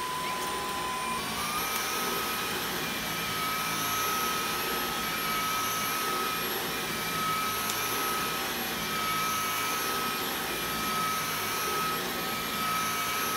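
Dyson V11 cordless stick vacuum running with its Torque Drive motorised brush head pushed over a rug: a steady motor whine over rushing airflow, stepping up in pitch about a second and a half in. The brush bar turns freely now that the broken shipping ring has been removed from the head.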